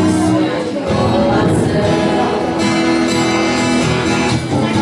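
A group of teenage girls singing a song together into one microphone.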